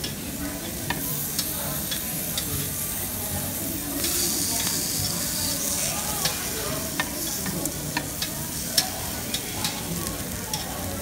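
Thin-sliced beef and shrimp sizzling on a tabletop grill grate, with metal tongs clicking against the grate as the pieces are turned over. The sizzle grows louder for a couple of seconds about four seconds in.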